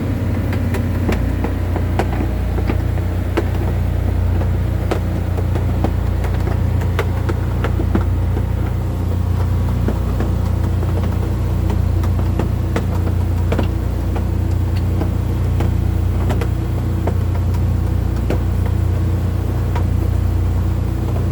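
Fishing boat's engine running steadily, with scattered sharp clicks and knocks over it.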